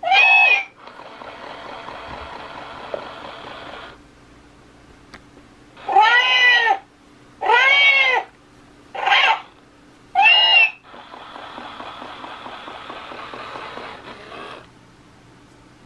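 An electronic toy cat (Sweet Petzzz black cat) playing recorded meows through its small speaker: five short, repeated meows. Between them come two quieter stretches of a steady, purr-like sound, each a few seconds long.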